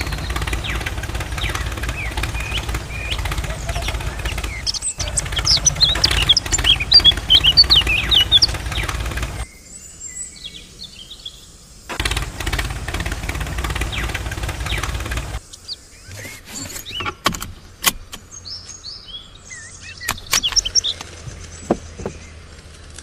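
Steady low chugging like a tractor engine running, in two stretches: one through the first nine and a half seconds and another of about three and a half seconds a little past the middle. Birds chirp throughout, loudest during the first stretch. In the quieter gaps there are light clicks and taps.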